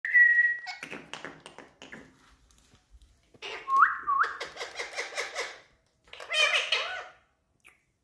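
Indian ringneck parrots whistling and chattering: a held whistle at the start, a run of clicks, two quick rising whistles about four seconds in, then bursts of garbled, talk-like chatter.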